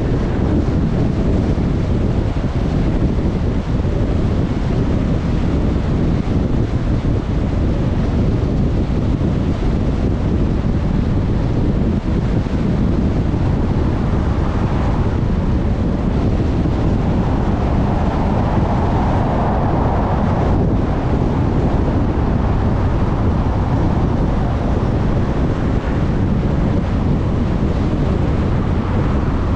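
Steady low rumble of a car driving on the road, tyre and engine noise with wind on the microphone, swelling briefly about halfway through.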